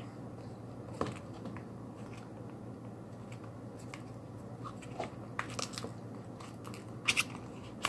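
Retail packaging being opened and handled by hand: scattered light clicks and scrapes, with a couple of sharper taps near the end.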